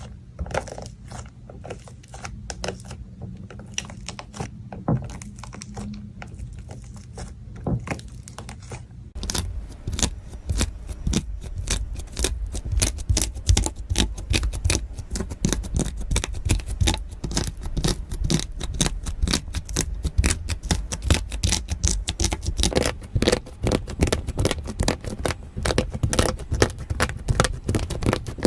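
Wax-coated slime being pressed and squished by hand, giving scattered sticky clicks and pops, then from about nine seconds in a dense, rapid crackling like keyboard typing.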